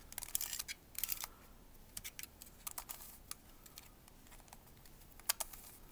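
Plastic Redi Cube Barrel twisty puzzle being turned by hand: irregular clusters of light plastic clicks and clacks as its corner pieces are twisted, the sharpest click about five seconds in.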